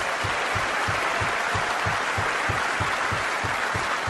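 Audience applauding steadily after a pointed line in a speech, with a low regular thump about four times a second underneath.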